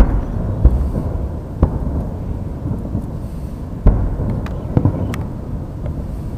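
Aerial fireworks shells bursting in the sky: about five deep booms over a continuous low rumble. The loudest booms come right at the start and about four seconds in, with a few faint crackles between them.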